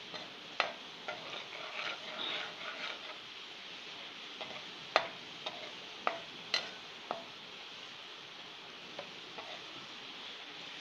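Chopped garlic sizzling in hot oil in a metal karahi as it browns, stirred with a perforated metal spoon that scrapes along the pan for the first few seconds. Several sharp clinks of the spoon against the pan come in the middle.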